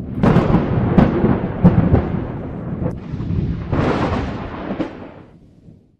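Cinematic logo-sting sound effect: deep booming hits over a thunder-like rumble, with a few sharp impacts in the first two seconds and another swell about four seconds in, fading out near the end.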